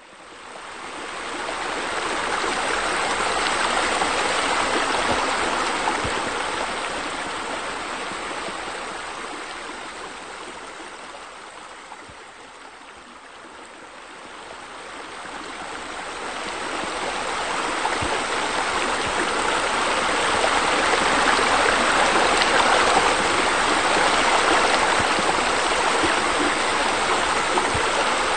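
Running water, a steady rushing sound like a stream or fountain. It fades in from silence at the start, grows quieter toward the middle and swells again through the second half.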